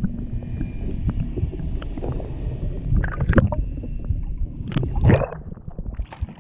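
Low rumbling wind and water noise around a small fishing boat, with a few short knocks about three and five seconds in.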